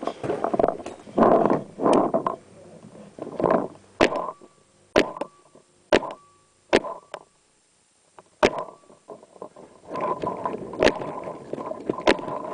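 Paintball marker firing single shots, five sharp cracks spread unevenly over about four and a half seconds, with rustling and scuffing from the player's movement before and after.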